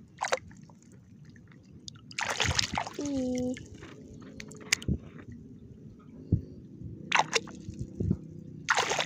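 A hand sloshing and splashing in shallow water while digging in the muddy bottom for clams, in a few short bursts, the loudest about two to three seconds in.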